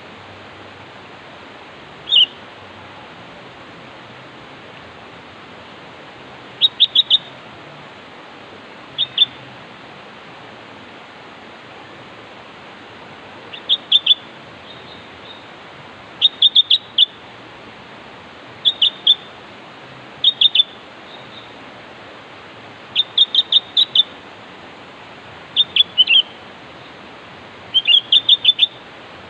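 Sooty-headed bulbul (kutilang) calling: short bursts of two to five sharp, high chirping notes every couple of seconds, over a steady hiss. This is the bird's calling call, used to lure rival birds.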